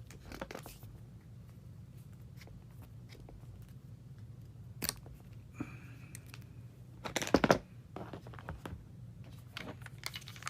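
Small handling clicks and knocks, then a sharp cluster of snaps about seven seconds in as cutters cut a flexible rod to length.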